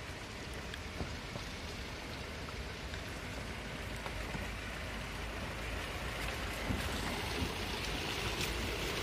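Steady hiss of rain, with the low engine sound of a Mahindra Bolero pickup underneath, growing slowly louder as the pickup crawls closer at low speed.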